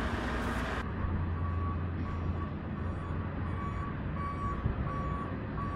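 Vehicle reversing alarm sounding a regular series of short, evenly spaced beeps over a steady low hum; the first second is outdoor noise on the microphone.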